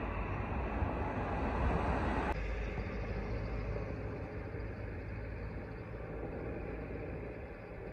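Steady rumble of a vehicle running nearby, slowly fading away.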